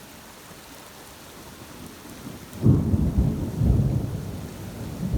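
Steady rain hissing, then about halfway in a sudden loud clap of thunder from a nearby lightning strike, rumbling deeply for a second or two and then trailing off under the rain.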